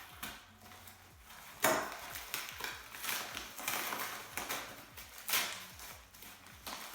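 A shipping package being handled and opened by hand: irregular rustling and crinkling, with several sharp knocks, the loudest about one and a half seconds and five seconds in.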